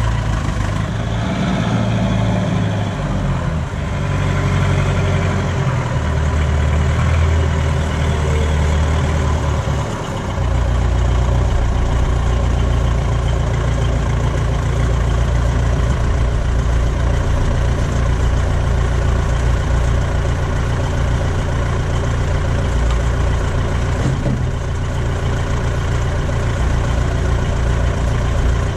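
Small forklift's engine running, its note shifting several times through the first ten seconds or so as it lifts and sets down a load, then settling to a steady idle.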